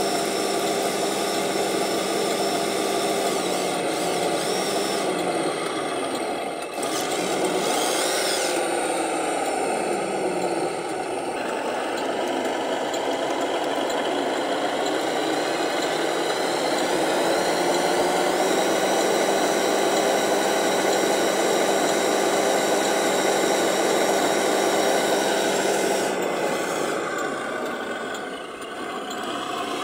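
Radio-controlled Scania model truck's drive motor and gearing running under load with a steady whine. The pitch sweeps up and back down about seven to eleven seconds in as the throttle changes.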